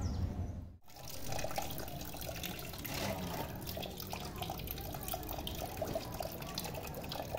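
Green engine coolant draining from a Yamaha R15 motorcycle's liquid-cooled engine in a thin stream, splattering into a metal pan, from about a second in. The coolant is being drained so the engine can be taken apart.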